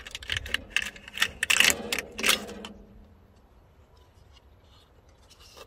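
Metallic rattling, clicking and scraping as a tractor's perforated-metal air filter element is twisted and pulled out of its air-cleaner housing, a quick run of clatter over the first two or three seconds that then falls away, with a couple of clicks near the end.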